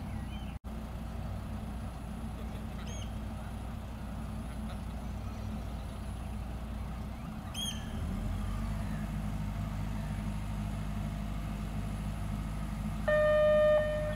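Lifeboat launch tractor's diesel engine running steadily as it moves the lifeboat on its trolley, the engine note growing fuller about eight seconds in. Near the end a horn sounds once for about a second, the loudest sound here, and a few faint bird chirps are heard.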